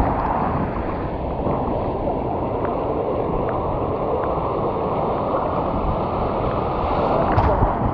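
Surf rushing around a paddleboard riding through the waves, with whitewater splashing over the board's nose, heard through wind buffeting on a board-mounted action camera's microphone.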